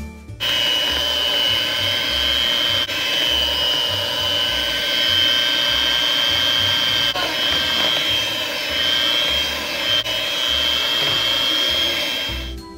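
Oster electric hand mixer running at a steady speed, its beaters working through thick muffin batter: a steady high motor whine with a rushing hiss. It switches on just after the start and cuts off just before the end, with background music's bass notes faintly underneath.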